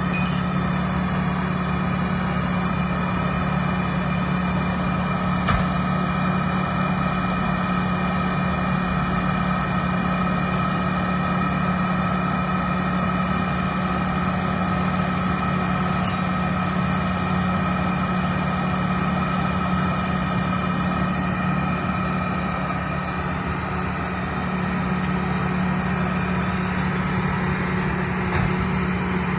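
2002 John Deere 650H LT crawler dozer's diesel engine running steadily, a constant engine note.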